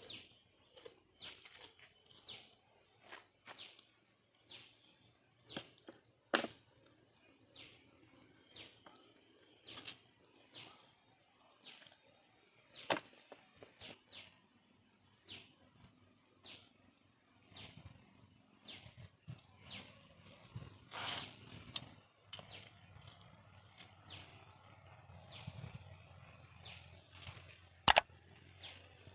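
A small bird chirping over and over, each call a short falling note, repeated about every two-thirds of a second. A single sharp click near the end.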